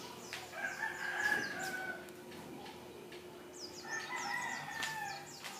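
A rooster crowing twice, each crow about a second and a half long, the first near the start and the second about four seconds in.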